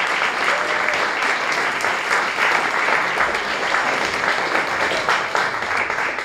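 Audience applauding: dense, steady clapping from a seated crowd, thinning a little toward the end.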